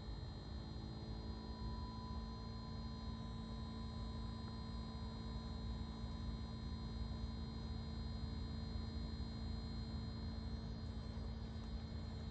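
Outdoor unit of a 2022 Fujitsu Halcyon ductless mini-split heat pump running during a defrost cycle. It makes a steady hum with fainter high, whining tones over a low rumble.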